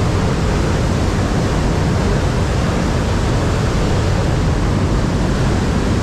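Steady, loud rushing of fast river water, an even roar with no breaks.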